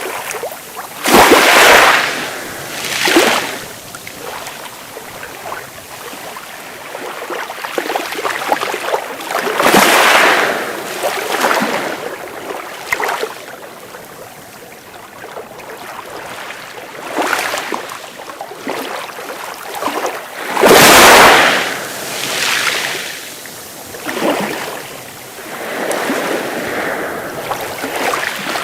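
Sea waves breaking and washing up on a beach in irregular surges every few seconds; the biggest break comes about two-thirds of the way through.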